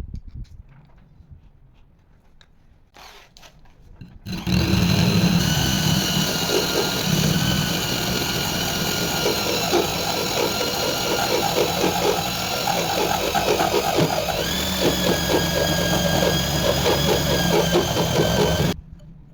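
Electric power tool running with a high whine and a fast rattle. It starts abruptly after a few seconds of faint clicks and knocks, steps up in pitch once, and cuts off suddenly near the end.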